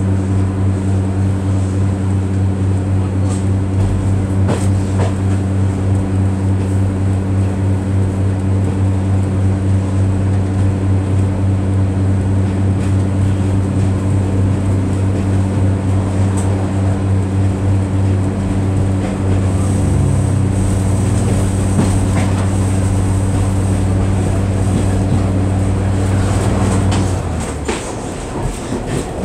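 Class 142 Pacer diesel railcar heard from inside the passenger saloon, its underfloor diesel engine droning steadily under power with an even pulsing beat. About 27 seconds in the drone cuts off as power is shut off, leaving the quieter rumble and clatter of the coasting train on the rails.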